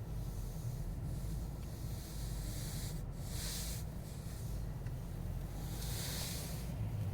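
Lexus LS430 with a newly replaced steering rack, making a steady low hum with hissing bursts: a faint one about a second in, then two clear ones of about half a second each, about three and six seconds in. This is the noise that appeared after the steering rack replacement.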